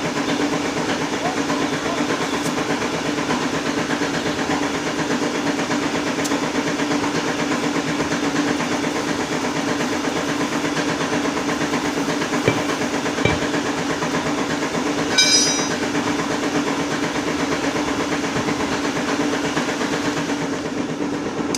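Steady mechanical hum over a constant hiss, with a brief high, rapid chirping rattle about fifteen seconds in.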